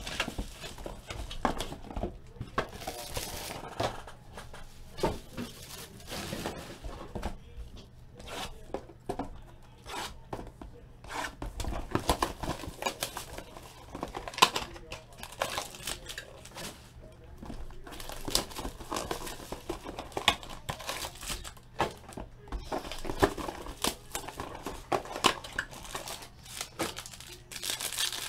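Plastic shrink-wrap and pack wrappers crinkling and tearing, with cardboard flaps handled, as a sealed trading-card hobby box is unwrapped and opened. Irregular crackles and short rips run on and off throughout.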